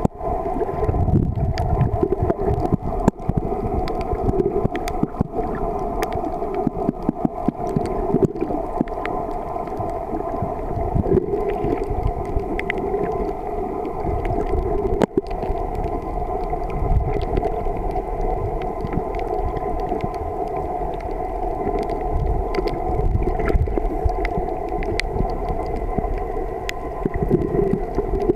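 Muffled underwater sound picked up by a camera in the water: a steady droning hum over low, swelling rumbles of moving water, with scattered small clicks.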